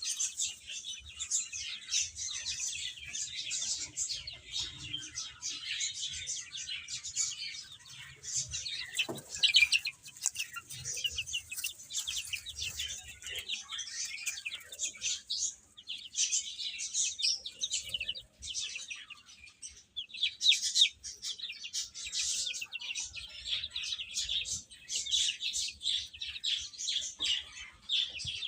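A group of baby chicks peeping continuously, many high chirps overlapping, with a few louder peeps standing out now and then.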